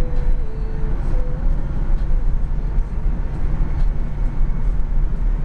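Car cruising at highway speed, heard from inside the cabin: a steady low drone of engine and tyre noise.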